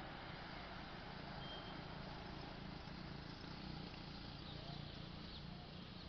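Faint outdoor street ambience: a low, steady hum from distant vehicle traffic under a soft hiss, with one short high-pitched tone about a second and a half in.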